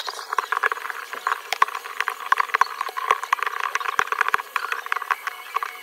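Metal blade scraping and chipping shattered back glass and adhesive off an iPhone 13 Pro Max frame: a dense run of irregular scratchy clicks and crackles over a steady hiss.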